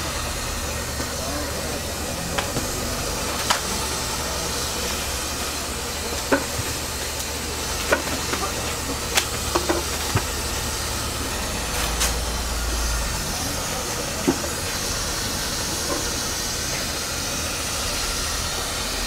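Steady hissing background noise over a low rumble, with scattered light clicks and taps.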